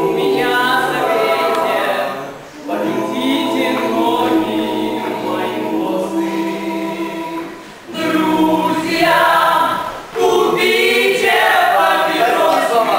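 A group of voices singing together as a choir, with short breaks between phrases about two and a half, eight and ten seconds in.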